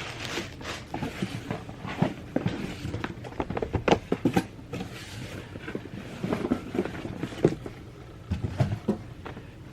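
A cardboard box and its packaging being handled and opened by hand: irregular rustles, scrapes and taps, thinning out near the end.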